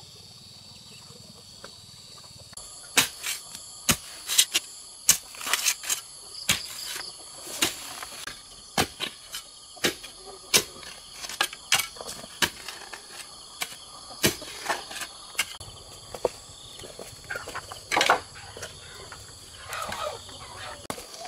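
Sharp, irregular knocks and taps, about one or two a second, over a steady high-pitched drone of insects. About three seconds in, the insect drone grows louder and the knocks begin; the knocks are the loudest sound.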